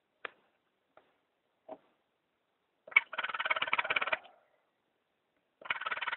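Baby raccoon kits crying: a few short squeaks, then two longer, rapidly pulsing cries of over a second each, one about three seconds in and one starting near the end.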